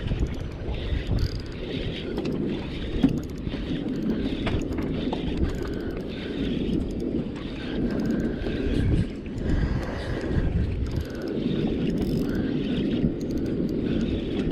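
Steady wind rushing over the microphone and water noise aboard a small fishing boat, a continuous low rumble.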